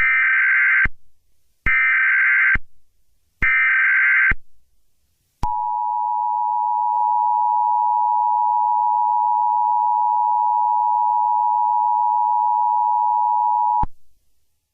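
Emergency Alert System signal. Three loud bursts of SAME header data tones, each just under a second, come first. Then the steady two-tone EAS attention signal is held for about eight seconds and cuts off suddenly.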